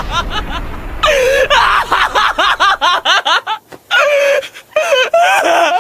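A high-pitched voice laughing wildly in rapid bursts, its pitch jumping up and down, with a couple of short breaks.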